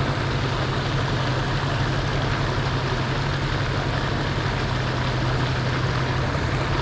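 Steady, even background noise with a constant low hum underneath, unchanging throughout.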